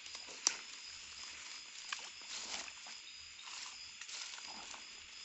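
Rustling of dry twigs and leaves as branches are pushed aside in undergrowth, with one sharp snap about half a second in. A steady high-pitched chirr of night insects runs underneath.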